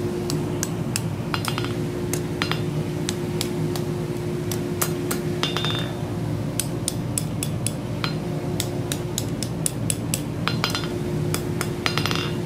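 Hand hammer striking a glowing 3/8-inch round mild steel bar on the anvil face. The taps come sharp and ringing in a quick, uneven run as the arch of the scroll is bent tighter.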